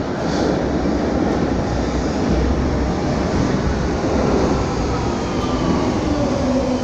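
Berlin U-Bahn train pulling into an underground station and slowing along the platform: a loud, steady rumble of wheels on rails, with a falling whine from its motors as it decelerates.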